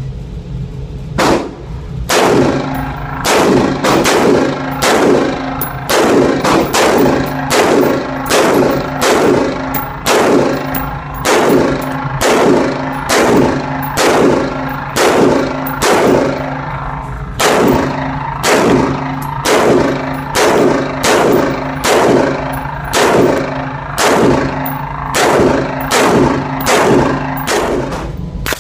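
A short-barreled AR-15 rifle firing a long, steady string of single semi-automatic shots, about one to two a second, each crack followed by a short echo off the indoor range walls.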